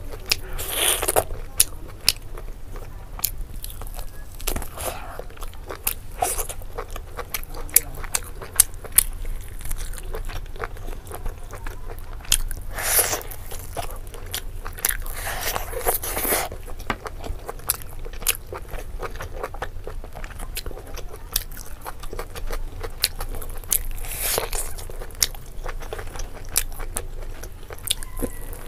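Close-miked chewing and biting on a curry-coated chicken leg: many small wet mouth clicks, with a few louder bites or sucks about a second long.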